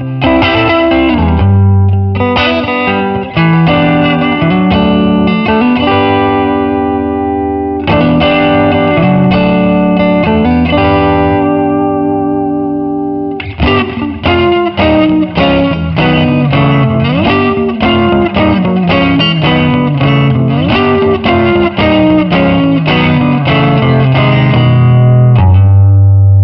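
Tokai Goldstar Stratocaster-style electric guitar played through a 7-watt Rivera Venus 3 amp and a Red Snapper overdrive pedal: single-note lead lines with string bends, a phrase left to ring and fade about halfway through, then a run of quick picked notes, ending on a low chord struck near the end and left to sustain.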